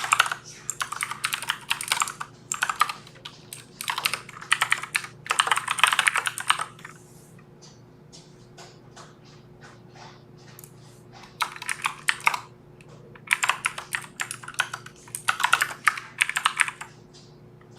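Typing on a computer keyboard: quick runs of key clicks in bursts, with a sparser stretch of a few seconds in the middle, over a faint steady hum.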